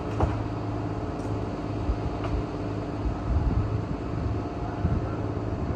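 An engine running steadily, with a few dull knocks in the middle.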